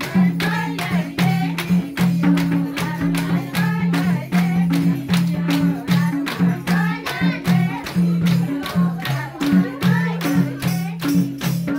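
Nepali Teej folk song: singing over a low repeating bass line and a sharp, steady percussive beat about four strikes a second.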